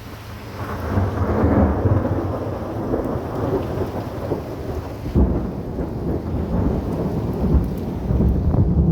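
Thunder rumbling loudly from a storm, building about a second in with another surge about five seconds in, over steady rain.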